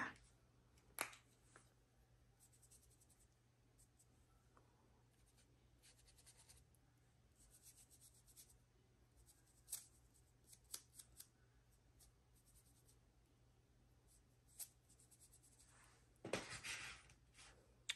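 Near silence: room tone with a few faint light clicks, then a brief rubbing, scrubbing sound about two seconds before the end.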